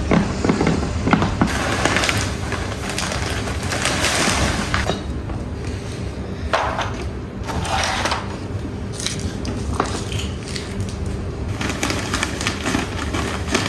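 Pottery shards and small stones being tossed in and shuffled about, with irregular surges of rough scraping and clattering and sharp clinks of fired clay.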